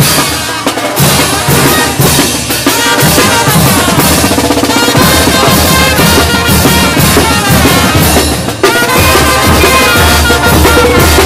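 Live Mexican brass band playing: bass drum and snare drum beating under trumpets and a sousaphone. The music drops briefly about eight and a half seconds in, then comes back at full level.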